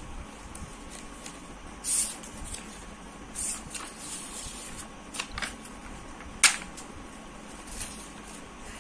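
A sheet of plain paper being handled and rustled, in a few short bursts, with small clicks and one sharp click about six and a half seconds in.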